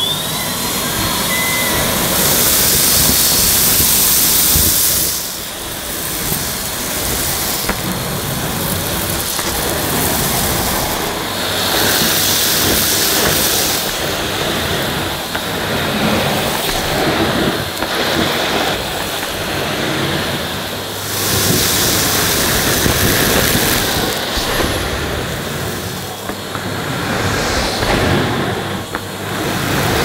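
Numatic Henry Allergy cylinder vacuum cleaner's motor spinning up with a rising whine, then running steadily while its floor nozzle is pushed back and forth over carpet, sucking up scattered dirt and fluff. The rush of air swells and falls with the strokes.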